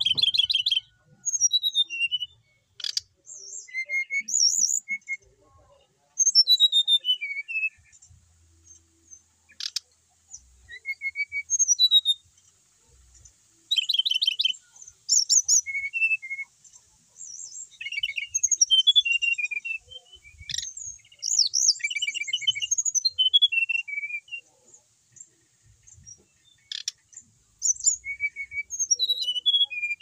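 Brown-chested jungle flycatcher singing without pause: a long run of varied high whistled phrases and fast trills, each a second or two long, separated by short gaps, with a few sharp clicks between phrases.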